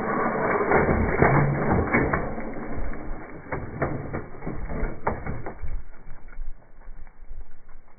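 Radio-controlled scale Bronco crawler running hard in mud and tipping over onto its side: a noisy clatter of drivetrain and body knocks with many sharp clicks, dying down over the last couple of seconds.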